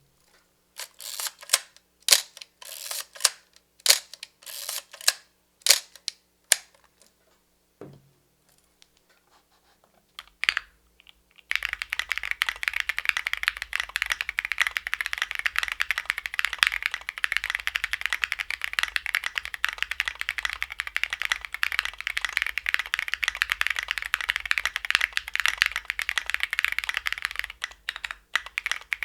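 Typing on a custom mechanical keyboard with lubed Cherry MX Hyperglide Black linear switches, SA-profile keycaps and a gasket-mounted polycarbonate plate. There are a dozen or so short separate bursts of keystrokes at first, then steady fast typing from about twelve seconds in, with a brief pause near the end.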